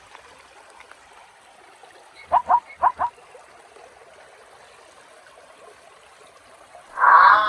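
Stream trickling steadily, broken about two seconds in by four short, loud animal calls in two quick pairs. Music starts near the end.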